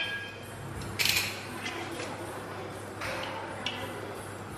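Brief handling noises: a short rustle or clatter about a second in and a softer one around three seconds, as an olive oil bottle is brought over an empty stainless steel saucepan. A steady low hum runs underneath.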